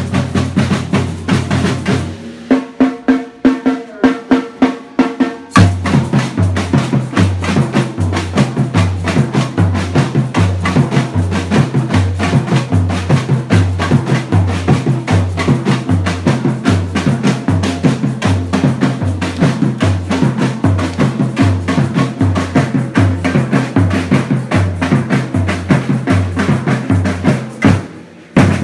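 Batucada samba percussion group playing live drums. About two seconds in the groove drops to a break of spaced accented hits. Then, about five and a half seconds in, the full fast steady groove returns, with bass drums alternating between two low pitches under snare drums.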